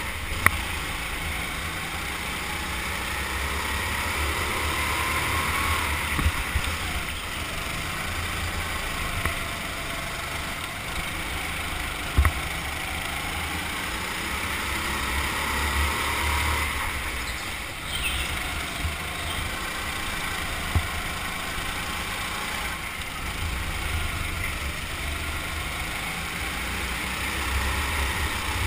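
Rental go-kart engine running as the kart laps an indoor track, its pitch and loudness rising and falling with the throttle through the corners. A few sharp knocks cut through it along the way.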